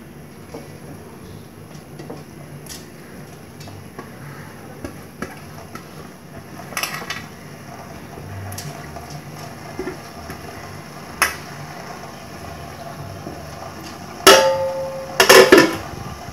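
Stainless steel cookware knocking and clinking, with a few light taps, then a loud clang near the end and a quick cluster of further clangs that ring on briefly. A low steady hum runs underneath.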